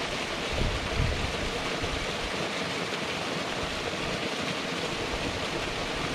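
Small mountain waterfall splashing steadily into a shallow rocky pool, with a couple of brief low thumps about a second in.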